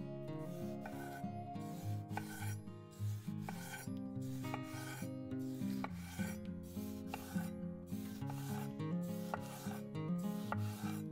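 A chef's knife slicing a tomato on an end-grain wooden cutting board. The slices come in a steady rhythm, a little under two strokes a second, each a short rasp as the blade cuts through the skin and flesh and meets the board. Soft background music plays throughout.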